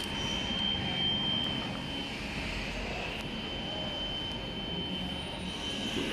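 Steady machine noise: a high whine held on one pitch over a low, even rumble.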